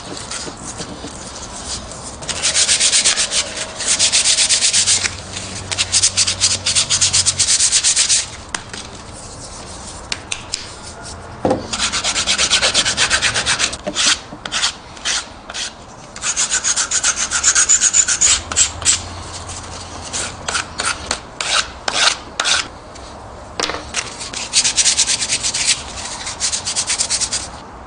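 Hand sanding of small wooden sticks with coarse 80-grit sandpaper, to break the sharp corners of the cut pieces. Quick, scratchy back-and-forth strokes come in several spells with short pauses between them.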